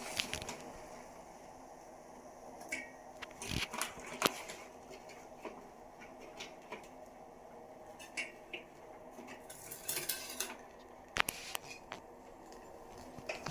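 A metal spoon clinking and tapping against a cooking pot in scattered light knocks as spoonfuls of country sugar go into the tea, the sharpest clink about eleven seconds in.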